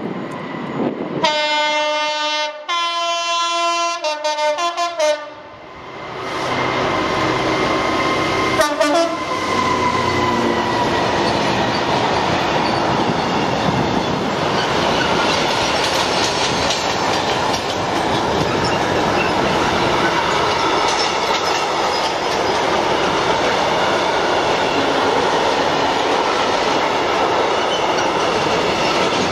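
Class 66 diesel freight locomotive sounding its horn in two blasts of slightly different pitch in the first five seconds, then the train passing: the locomotive followed by a long rake of covered freight wagons rumbling and clattering over the rail joints, steady to the end.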